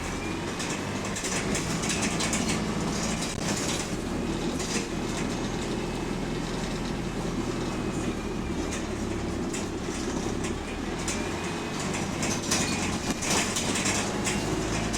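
Inside a moving single-deck bus: the engine running steadily, with rattling and clattering from the bodywork and fittings throughout.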